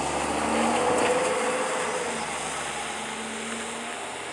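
Freight train rolling through a grade crossing: a steady rumble of wheels on rail that swells about a second in and then slowly fades.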